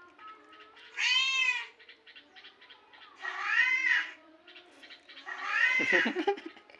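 Three high-pitched, drawn-out mews about two seconds apart, the last one longer with a rougher, lower edge: the crying of kittens, as from the recording played to the cat.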